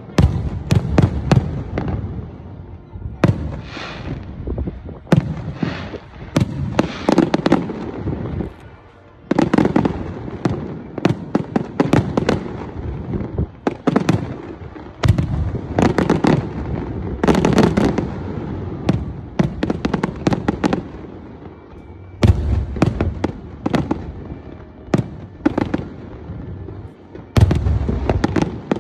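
A fireworks display: rapid volleys of shell bursts and crackling, one after another. There is a short lull about nine seconds in and a dense volley near the end.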